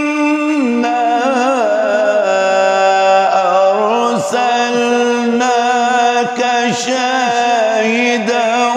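A man's solo Quran recitation (tilawat) in the melodic tajweed style: long held notes with wavering ornaments, gliding and stepping from one pitch to the next.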